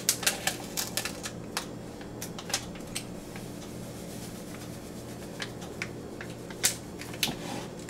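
Single-serve protein powder sachet crinkling as it is torn open and handled: a quick run of sharp crackles over the first few seconds, then occasional crinkles while the powder is shaken out into a bowl. A steady low hum runs underneath.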